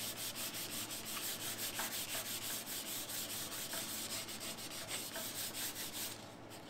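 Hand sanding of a Vespa 50's epoxy-primed steel body panel, a sanding pad rubbed back and forth in rapid, even strokes. It is sanding back a dry guide coat so that dents and hammer marks show up before filling.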